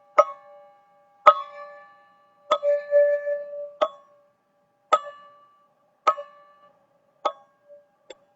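Teal ZenTube struck seven times, about a second apart, each strike ringing out in a few clear bell-like tones and dying away quickly. One note rings on longer from about two and a half seconds in.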